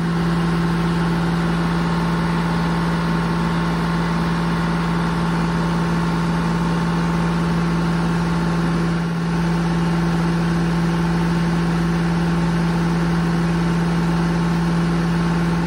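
Three-cylinder two-stroke Detroit Diesel engine powering a circular sawmill, running at a steady speed with an even drone.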